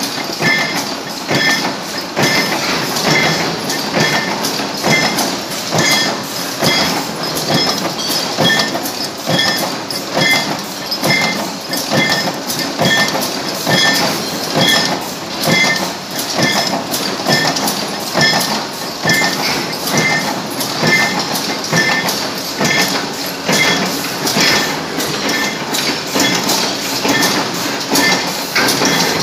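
Power press blanking parts from coil strip fed by a servo feeder, stroking about once a second with a short metallic ring on each stroke, over steady workshop machine noise.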